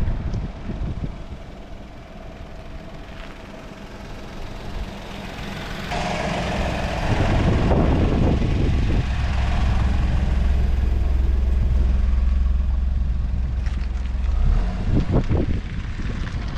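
A vehicle running with a low rumble that swells about six seconds in, holds steady, and drops off a couple of seconds before the end.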